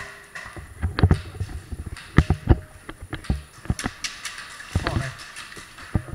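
Irregular knocks, low thumps and clicks of a player moving and handling gear behind tyre stacks, some close together and others a second or more apart.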